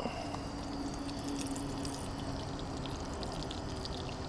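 Runny pancake batter poured from a plastic cup into a hot oiled skillet on a propane camp stove, sizzling and crackling as it hits the oil.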